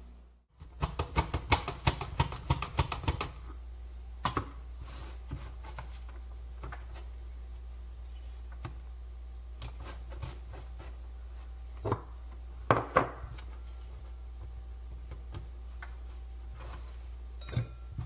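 Potato being slid back and forth over a mandoline slicer's blade: a quick run of sharp slicing strokes for a few seconds, then scattered single clicks and knocks as the slicer and slices are handled, over a steady low hum.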